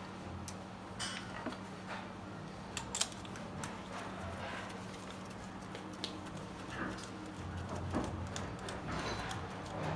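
Gloved hands working tools and fittings on a bare engine: scattered clicks and light metallic knocks at irregular intervals, over a faint steady hum.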